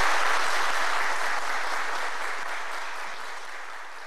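Audience applauding, the clapping fading away steadily.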